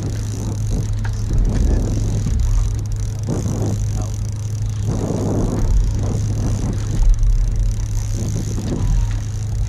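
Boat's outboard motor idling, a steady low hum, with wind gusting on the microphone.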